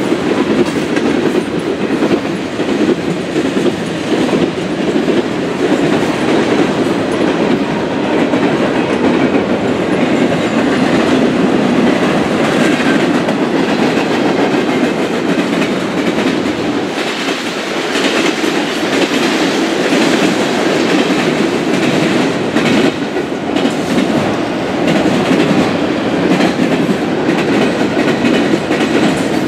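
Mixed freight train's cars (tank cars, covered hoppers, coil cars) passing close by: a steady loud noise of steel wheels on rail, with wheels clicking over the rail joints.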